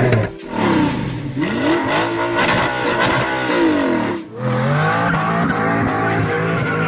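Lamborghini Aventador SV's V12 engine revved again and again, its pitch rising and falling with each blip. After a cut about four seconds in, another supercar engine revs in the same way.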